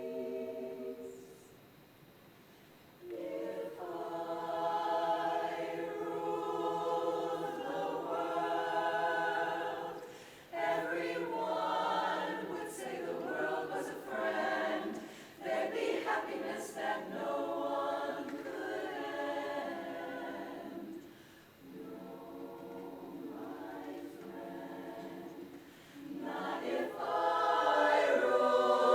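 A cappella chorus of 23 singers in full chord. Singing breaks off for a moment about a second in, comes back, drops to a softer passage after about twenty seconds, then swells to its loudest near the end.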